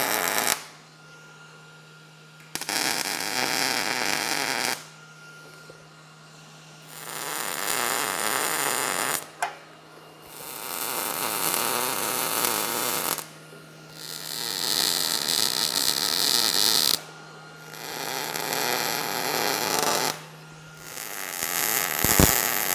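Gas-shielded MIG welder laying short beads on steel square tubing: the arc's steady crackling hiss comes in about seven runs of two to three seconds each. A low steady hum continues in the pauses between them.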